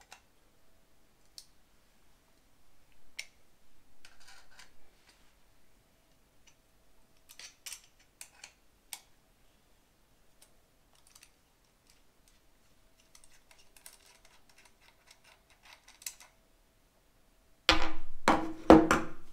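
Small metal clicks and scrapes as a 7 mm Allen key works the muzzle end piece off a Weihrauch HW97 air rifle. Near the end, three or four loud sharp knocks as the key and the removed metal part are put down on a wooden table.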